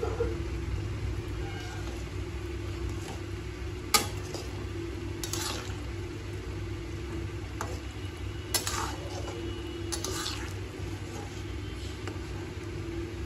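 A spatula stirring fried brinjals into a simmering curry in a metal pan, with scrapes against the pan and a sharp clack about four seconds in, over a steady low hum.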